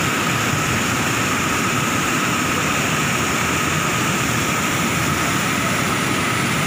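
Muddy floodwater rushing over a concrete weir and churning in the channel below, a steady loud rush with no breaks.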